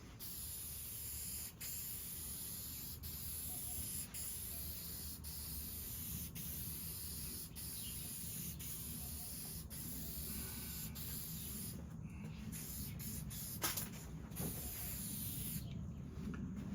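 Aerosol can of shellac spraying in a steady hiss, with a few short breaks between passes in the last few seconds.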